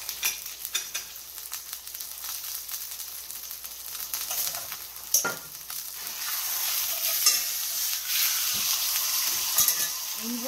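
Rib steak and sliced garlic sizzling on high heat in a cast-iron skillet, a steady hiss with scattered pops. There is a sharp click about five seconds in, and the sizzle grows louder from about six seconds in.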